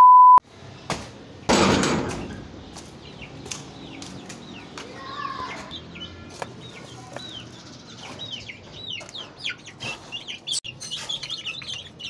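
A short steady test-tone beep, then a brief rush of noise, then young chickens peeping over and over: short, high, falling chirps that come thicker toward the end.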